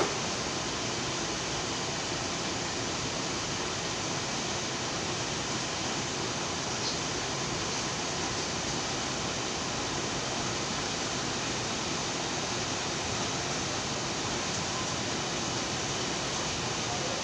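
Steady, even hiss-like noise with no distinct tone or rhythm.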